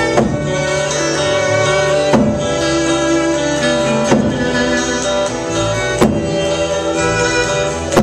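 Celtic fusion band playing an instrumental: fiddle over bass, electric guitar and keyboard, with a heavy drum stroke about every two seconds.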